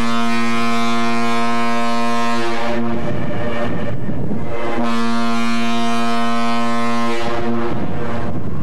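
Ship's horn sounding two long, steady blasts of about three seconds each, with about two seconds between them, over a steady low hum.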